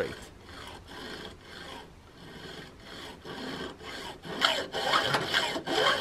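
Hacksaw cutting through a bicycle fork's metal steerer tube with quick back-and-forth strokes, about three a second, growing louder a little past halfway.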